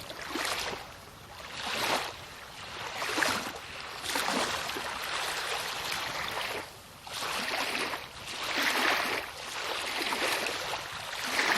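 Water washing and splashing around a kayak's hull, swelling and fading in repeated surges every second or two.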